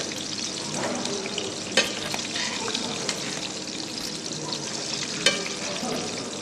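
Potato pancakes (draniki) sizzling steadily as they shallow-fry in hot oil in a pan, with two sharp clicks against the pan.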